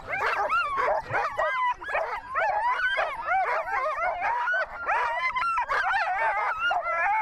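A chorus of many sled dogs yelping, barking and howling at once, their high calls overlapping continuously.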